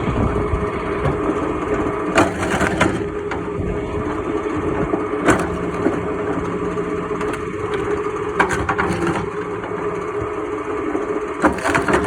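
An engine runs steadily while wood is crushed and splinters, with sharp cracks about two, five, eight and a half and eleven and a half seconds in.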